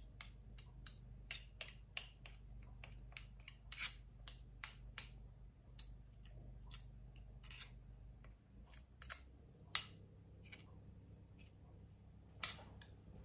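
Two small metal spoons clicking and scraping against each other as sticky tahini is scraped from one with the other: faint, quick, irregular clinks, thinning out after about five seconds.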